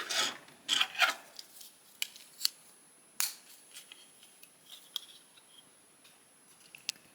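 Hard plastic action-figure parts being handled and fitted together. A few short rubbing scrapes come first, then several sharp clicks and smaller taps as the back shield pieces are pushed onto the figure.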